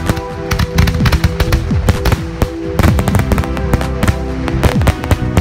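Consumer firework cake firing a rapid volley of shots and star bursts, sharp bangs several a second with crackling between them, over background music.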